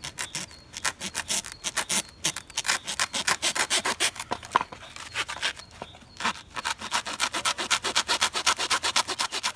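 A hand-held hacksaw blade sawing back and forth through dry, fibrous coconut husk, in rapid rasping strokes about five or six a second. The strokes ease off briefly about halfway through.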